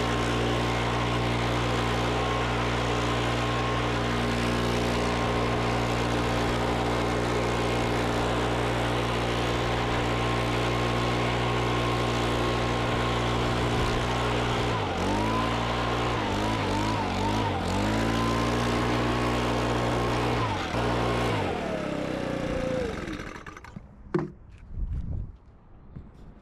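Small four-stroke yard-tool engine running steadily at high speed. It is throttled down and back up several times, then shut off, its pitch falling as it winds down to a stop. A single sharp knock follows.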